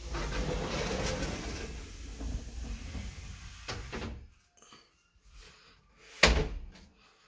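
Glass-fronted wardrobe door being moved along, a long rolling noise that starts suddenly and fades over about four seconds. About six seconds in there is a single sharp knock as the door meets its frame.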